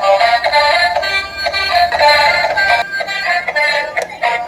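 Tinny electronic music with a synthesized voice-like melody, thin and with almost no bass.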